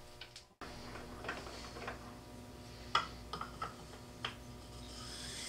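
A few light clicks and knocks of a wooden go/no-go gauge ring being handled against a turned wood pipe and the metal lathe, the loudest about three seconds in. Near the end a soft rubbing hiss builds as the ring slides onto the pipe.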